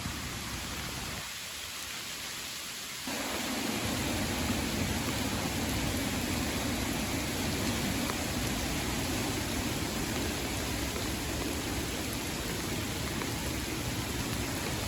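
Steady rush of floodwater through a drainage channel into a swollen creek. It dips briefly, then grows louder about three seconds in and holds steady.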